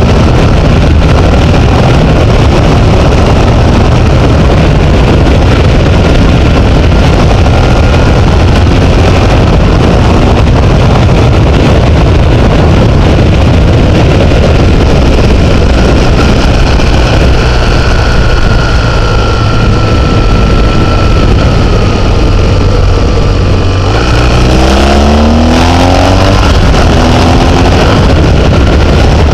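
Loud wind rush on the microphone of a camera riding a vehicle down a mountain road, with an engine running underneath. About 24 seconds in, the engine pitch climbs in a few short rising steps as it accelerates up through the gears.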